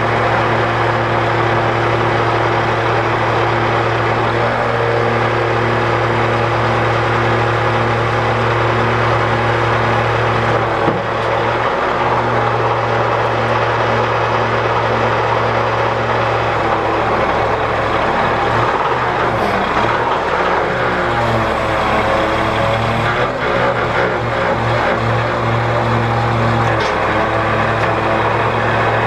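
Diesel engine of a heavy earth-moving machine running steadily under work, its note shifting a little as the load changes about halfway through.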